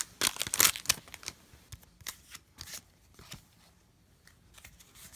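Foil trading-card booster pack wrapper crinkling and crackling as the stack of Pokémon cards is slid out of it, with the cards clicking against each other. The crackling is densest in the first second, thins to a few scattered ticks, and goes quiet after about three and a half seconds.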